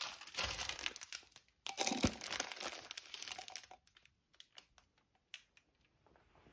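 Plastic sleeve around a flower bouquet crinkling as the bouquet is handled and set into a ceramic jug. The crinkling is dense for about three and a half seconds, then thins out into a few scattered crackles.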